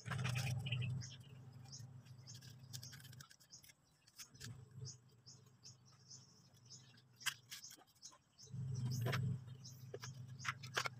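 Handling sounds: light knocks and scrapes as a metal plate, a tin can and a metal rod are moved about on a wooden bench, over a low rumble that comes and goes and high bird chirps in the background.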